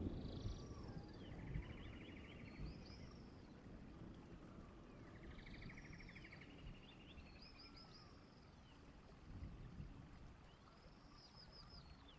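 A songbird singing faintly, repeating the same short phrase about every four to five seconds: high whistled notes and a fast trill. A low rumble of outdoor background noise runs underneath.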